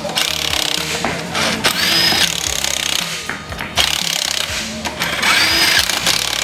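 Cordless impact wrench running on a truck wheel's lug nuts in two bursts, the second longer, tightening them as the wheel goes back on.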